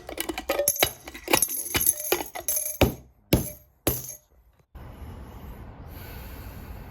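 Coins clinking and jingling into a glass jar: a quick run of bright metallic clinks over about four seconds, then a steady low background hiss.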